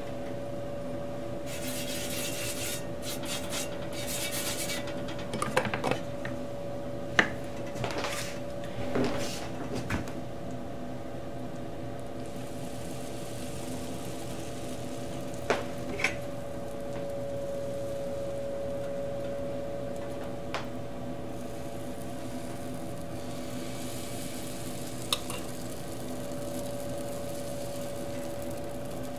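Pancake batter sizzling in spells on a hot, oiled cast-iron griddle, with a few sharp clinks of utensils against the pan. A steady hum runs underneath.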